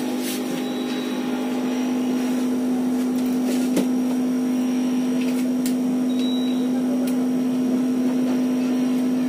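Baba Tools Bubble Remover V3, a pressure chamber that clears air bubbles from a freshly laminated phone screen glass, running with a steady hum and a few faint clicks.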